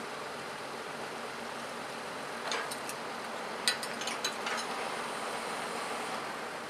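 Steady rushing background noise with a short run of sharp metallic clinks and rattles in the middle, the sharpest a little under four seconds in.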